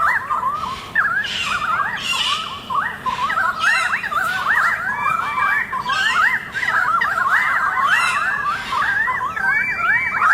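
A continuous chorus of bird calls: many quick rising-and-falling notes overlapping one another without a break.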